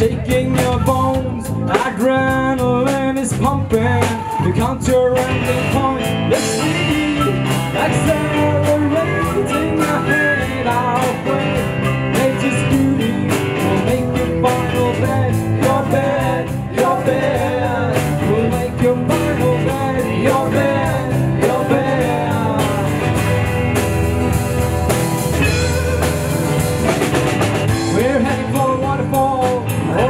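Live rock band playing a song: drum kit keeping a steady beat under acoustic and electric guitars, with a melody line on top.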